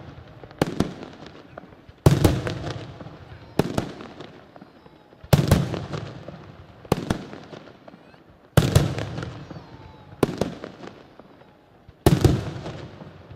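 Aerial firework shells bursting one after another, eight sharp bangs about every one and a half seconds. Each bang is followed by a rolling echo that dies away.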